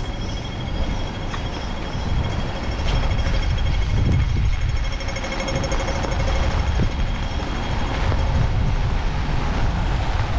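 City street traffic with wind buffeting the camera microphone in typhoon conditions, a heavy low rumble throughout. Thin, steady high electronic tones sound over it, with a faster pulsing beep in the middle.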